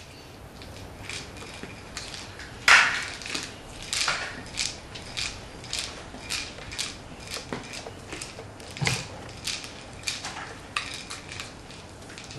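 Kong Wobbler, a hard plastic treat-dispensing toy, being pawed by a cat so that it tips and knocks against a wooden parquet floor, with dry kibble rattling inside. A string of irregular clacks and rattles, about one or two a second, the loudest about three seconds in.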